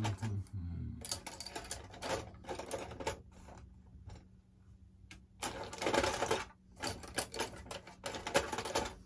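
Hands working at the parts of a foam-and-plastic RC model jet: irregular runs of scraping, clicking and rattling, in two clusters, one about one to three seconds in and a louder one from about five and a half seconds to near the end.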